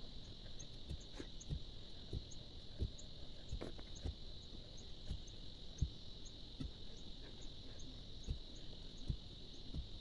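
Iron digging bar jabbed repeatedly into stony soil to dig a pit: dull thuds, about two or three a second, over a steady high hum.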